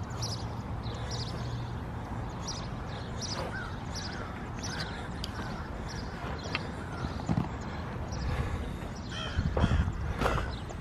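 Footsteps walking at a steady pace on gravel, about two steps a second, with a louder low rumble near the end.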